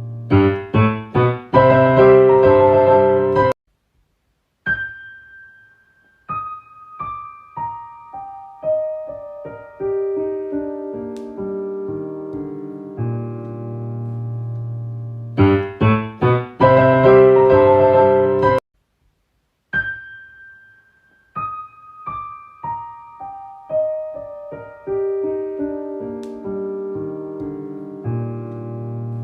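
Solo piano music: a few loud, quick chords, a sudden second of silence, then a slow falling line of single notes that ring out. The same phrase repeats about halfway through.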